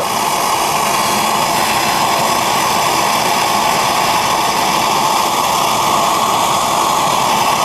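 Propane torch burning steadily, its flame aimed at lead in a melting pot to speed the melt.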